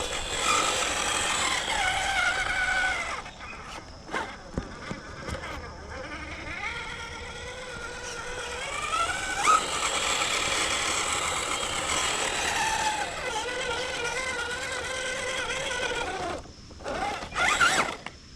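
Holmes Hobbies 13-turn 3-slot 550 brushed motor and gearbox of an RC crawler whining, the pitch rising and falling with the throttle. The whine drops back for a couple of seconds about four seconds in, with a few sharp clicks and knocks, then picks up again.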